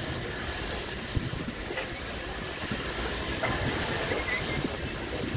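Narrow-gauge Garratt steam locomotive (ex-South African Railways NGG16 No. 87) getting under way: steady steam hissing with a few knocks from the engine.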